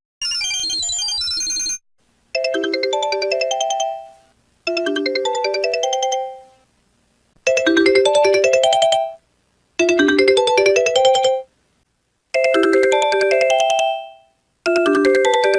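Sony Ericsson phone ringtone: its short signature jingle played several times over, each play about a second and a half long with brief silences between, in slightly different synthesized timbres from one variant to the next. Some plays fade away and others cut off abruptly. The sound is clean, taken straight from the phones' audio output with no room sound.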